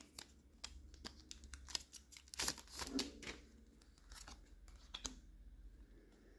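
Faint crinkling of a foil Magic: The Gathering booster pack wrapper and rustling of trading cards being pulled out and slid through the hands, with a few louder crinkles about two and a half to three seconds in.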